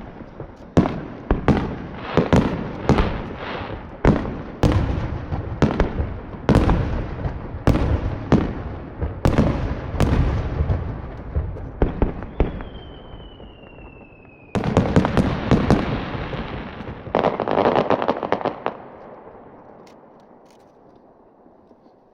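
Aerial firework shells bursting in quick succession, about one to two bangs a second, each with a rumbling echo. A single whistle slowly falls in pitch for about two seconds, then a dense spell of crackling sets in suddenly and fades away near the end.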